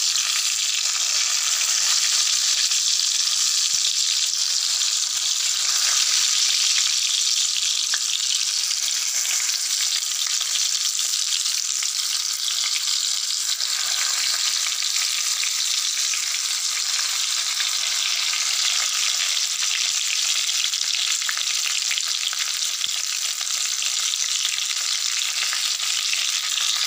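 Stuffed small eggplants sizzling steadily in a little hot oil in a kadhai, shallow-frying.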